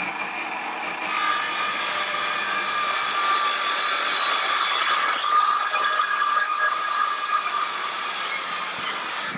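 Cordless circular saw running at full speed and cutting through a wooden board: a steady high whine that grows louder about a second in as the blade bites into the wood and holds through the cut, stopping near the end.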